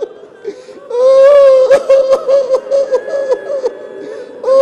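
A man weeping aloud in grief close to a microphone: after a quiet first second comes a long, high held wail, then short broken sobs in quick succession.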